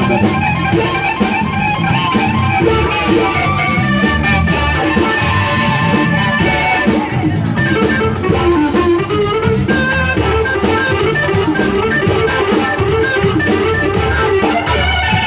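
Live blues band playing an instrumental passage with no singing: guitar, keyboard and drum kit.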